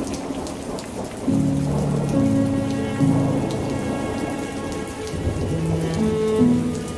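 Steady rain falling, with many single drops ticking, over slow instrumental music holding long chords that change every second or two; no singing.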